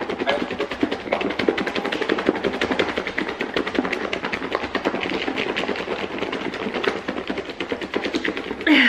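Salad being shaken hard in a black plastic takeout bowl with a clear plastic lid: a fast, continuous rattle of lettuce and toppings against the container, mixing in the dressing.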